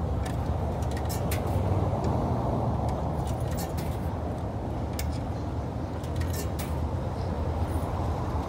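Steady low rumble of city street traffic, with scattered light clicks over it.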